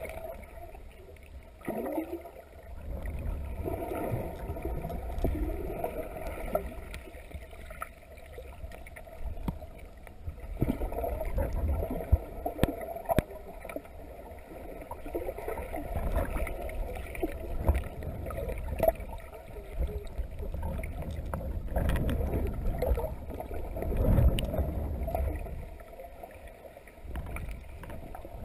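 Muffled underwater water noise from a submerged camera moving through the water: a low rumble and sloshing that swells and fades every few seconds, with scattered small clicks and knocks.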